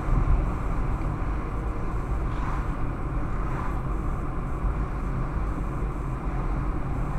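A car driving along a town street: a steady rumble of engine and tyre noise with no let-up.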